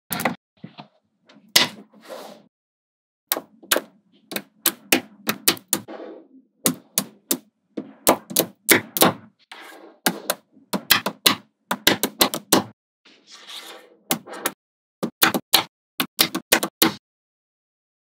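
Small magnetic balls clicking and snapping together: quick clusters of sharp clicks and short rattles, broken by brief silent gaps.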